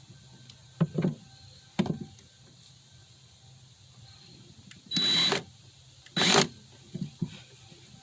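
A few wooden clunks, then two short bursts of a cordless drill/driver running screws into wood, each about half a second long with a thin whine.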